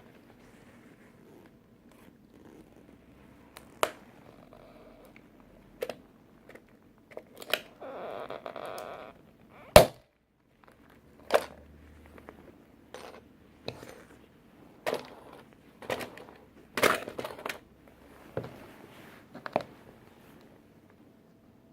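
Toy tractor being crushed under work boots: irregular sharp cracks and crunches spread over the whole stretch. There is a longer grinding crunch about eight seconds in, just before the loudest crack.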